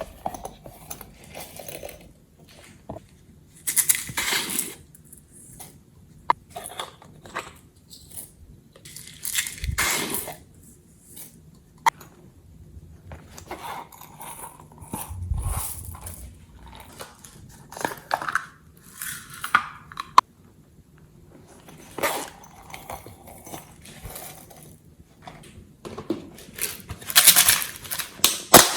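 Glossy slime being squished, stretched and folded by hand, giving irregular sticky squelches and sharp clicking pops in short bursts.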